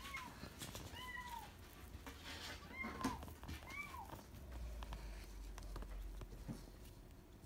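A mixed-breed puppy whimpering: four short, high whines that each rise and fall in pitch, spread over the first four seconds, with faint knocks around them.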